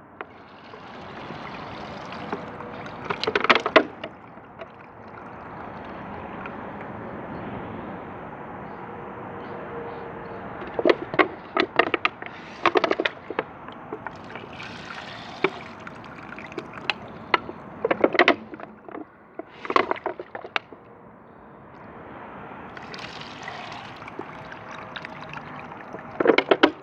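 Water poured from a bucket into a clay forward-trap toilet, running and gurgling through the bowl and siphon jet as it flushes. Clusters of sharp knocks and clatter come several times over the running water.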